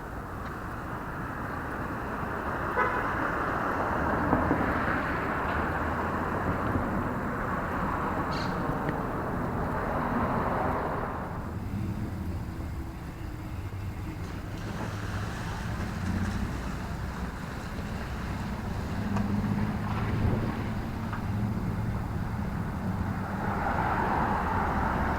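City street traffic: cars and other vehicles driving past, the noise swelling and fading in waves, with low engine running in the second half.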